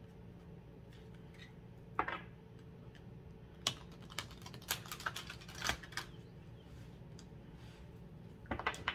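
An oracle card deck being shuffled by hand: a short flurry of card clicks about two seconds in, a denser run of clicks and slaps in the middle, and another quick flurry near the end.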